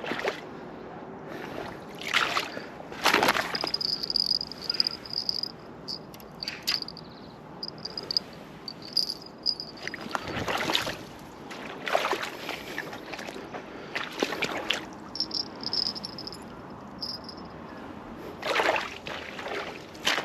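Irregular scrapes and crunches of a small hole being dug into damp earth, coming in uneven bursts a few seconds apart.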